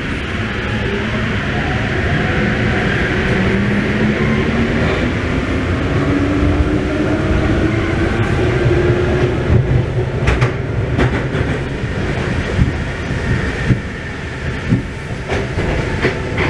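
Paris metro train running on open track, heard from inside the front car: a steady rumble with a motor whine rising in pitch as it speeds up over the first several seconds, then a few clacks of the wheels over rail joints later on.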